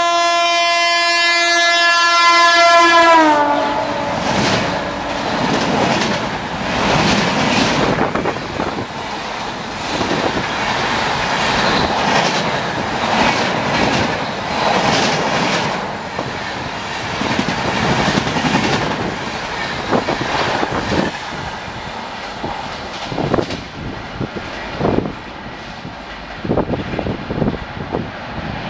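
An electric locomotive's horn blows one long steady note as the express approaches at full speed, then drops in pitch about three seconds in as the locomotive passes. The coaches follow at speed with a steady rumble and rhythmic wheel clatter, which comes in quick bunches near the end as the last wheelsets go by.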